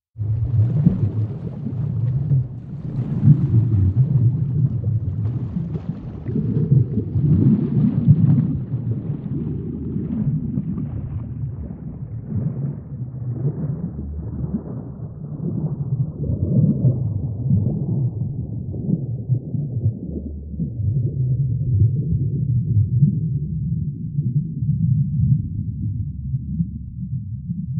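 Low, muffled rumble of moving water. It starts abruptly and grows steadily duller as its higher part fades away over the next twenty seconds.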